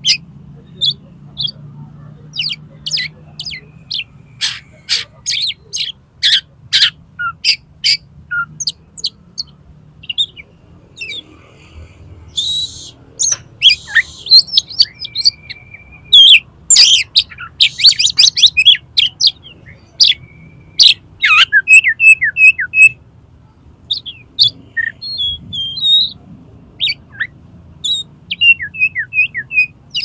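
Oriental magpie-robin singing loudly in a long, varied run of sharp whistled notes, quick trills and strings of repeated chirps, with filler phrases borrowed from other birds' songs. It is a challenge song, the bird in fighting mood with its tail spread.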